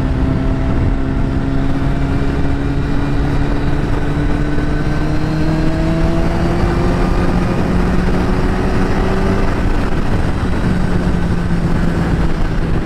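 2010 Kawasaki ZX-10R's inline-four engine running through an Akrapovič carbon exhaust while the bike is ridden, its pitch climbing slowly as it pulls. A steady noisy rush runs underneath it.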